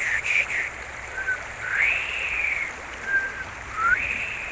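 Clear whistled notes over a steady rush of river water. A quick run of chirps ends shortly after the start, then come a few separate slurred whistles, one rising and held for about a second.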